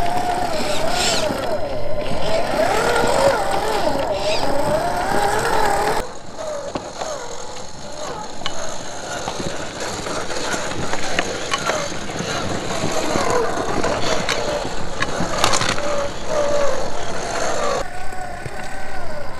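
Electric motor and gear whine of a Traxxas TRX-4 RC crawler, rising and falling in pitch as the throttle is worked, with small clicks of tyres and stones on rock. The whine drops and quietens abruptly about six seconds in.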